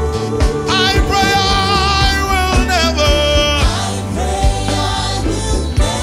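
Live gospel worship music: a singer holds long notes with vibrato over a band with drums and bass guitar.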